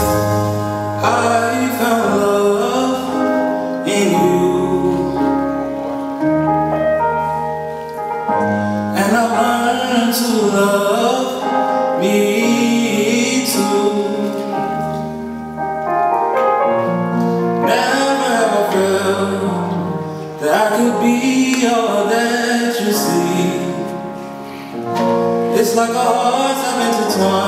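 A young man singing a slow song solo into a microphone over sustained piano-like chords, holding long notes in phrases.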